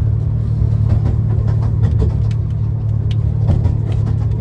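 Running noise of a 15-inch gauge miniature railway train heard from inside an enclosed carriage: a steady low rumble with scattered light clicks and knocks.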